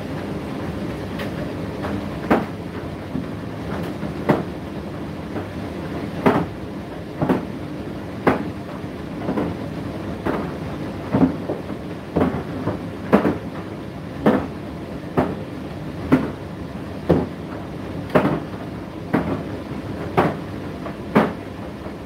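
Indesit IDC8T3 condenser tumble dryer running: a steady hum from the motor and drum, with a sharp knock about once a second as the load tumbles in the turning drum.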